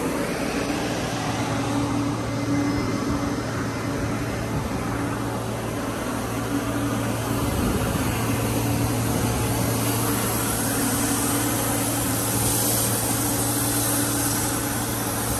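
Steady drone of the wet-blasting rig's running compressor: a constant low hum under an even broad hiss, with no change in pace. The low hum comes up firmer about a second in.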